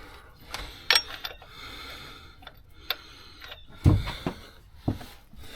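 Scattered clicks and knocks of hands and metal parts being handled in an engine bay while a serpentine belt is worked over the pulleys, the loudest a dull knock about four seconds in.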